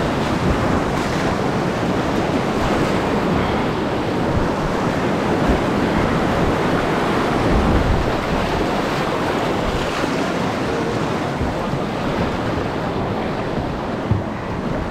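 Whitewater rapids rushing and splashing right at the boat, a steady roar of water that softens a little near the end as the water calms.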